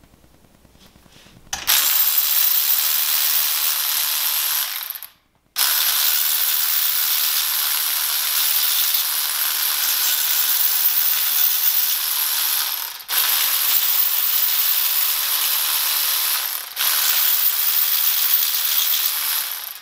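Cordless electric ratchet running the crankshaft main-bearing cap bolts down, in long steady spells that start about a second and a half in, with a short break about five seconds in and brief pauses around 13 and 17 seconds.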